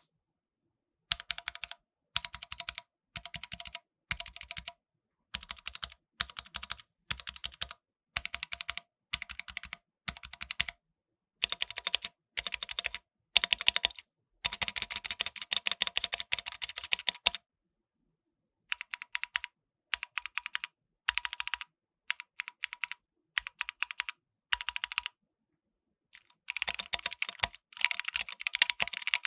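Typing on an AKKO MOD005 mechanical keyboard with AKKO Jelly Black linear switches and AKKO Black and Silver keycaps: short bursts of rapid keystrokes with brief pauses between them, a longer run about halfway through, and continuous fast typing near the end.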